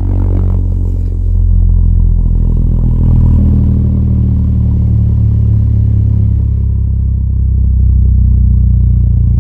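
Mivoc Hype 10 G2 car subwoofer playing a loud, steady low bass tone with buzzy overtones during a frequency test.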